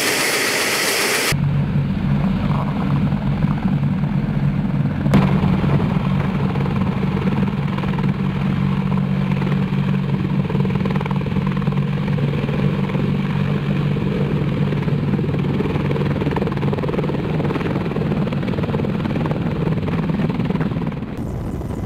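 AH-64 Apache attack helicopter's rotor and twin turboshaft engines running at close range, a steady, loud low drone. The sound changes abruptly about a second in, and there is a single sharp click about five seconds in.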